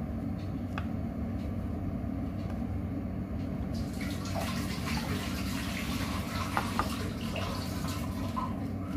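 Water running over a steady low hum, the rushing starting about four seconds in.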